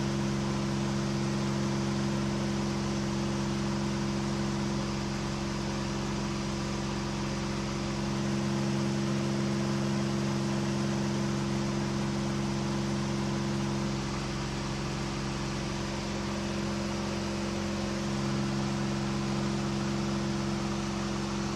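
KR2 light aircraft's piston engine and propeller droning steadily at about 2,800 rpm in a climb, with a constant rush of air over the cockpit.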